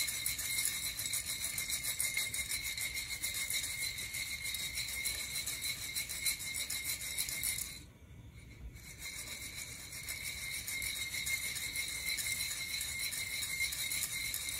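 Coffee beans rattling inside a Nuvo ceramic hand roaster as it is shaken, a dense run of small clicks that stops for about a second roughly halfway through, then resumes.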